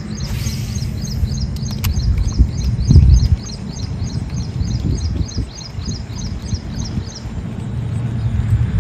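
Low rumble, loudest about three seconds in, under a quick, even series of high chirps, about four a second, that stops near the end.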